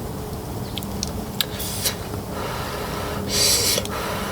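Noodles being slurped in short sucking bursts: a brief one near the middle and a longer one near the end. A steady low hum runs underneath.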